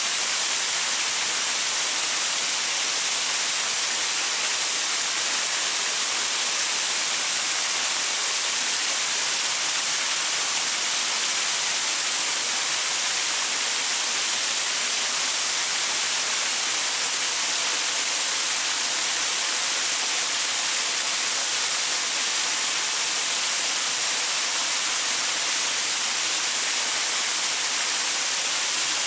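Small waterfall splashing over rocks: a steady, even hiss of falling water with little low rumble.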